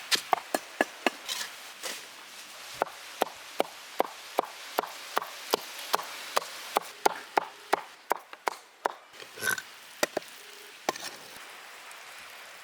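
A knife chopping boneless chicken on a board, mincing it into keema: steady, evenly spaced sharp chops, about two and a half a second. The chopping stops near the end.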